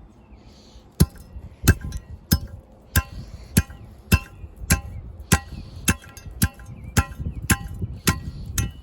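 A steel digging tool struck again and again against the ground, about every 0.6 seconds, each blow leaving a short metallic ring, as a refilled dig hole is tapped flat.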